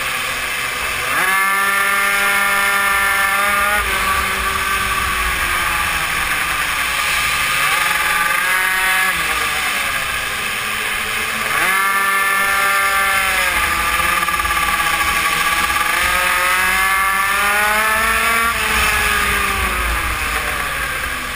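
GRC RR BZM super mini moto engine revving on a racing lap. Its pitch climbs sharply as the throttle opens about a second in and again near halfway, then falls away gradually while the rider is off the throttle. Wind rushes over the onboard microphone.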